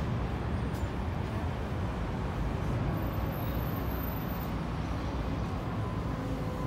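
Steady city traffic noise from buses and other road vehicles, mostly low-pitched.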